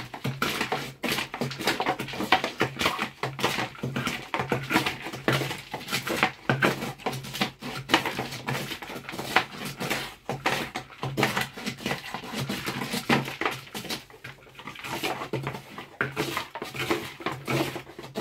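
Rapid, irregular scraping and knocking of a smouldering wooden stick worked up and down inside a hollow dried gourd, lining its inner wall with charcoal to prepare it for fermented milk.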